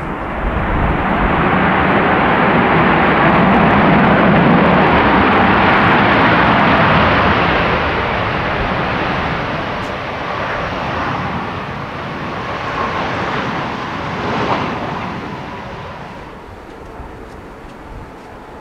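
Boeing 787-8 Dreamliner's jet engines passing close by on a wet runway: a broad rushing jet noise that swells over the first couple of seconds, holds, then fades steadily from about seven seconds on. Gusty wind rumbles on the microphone at the start.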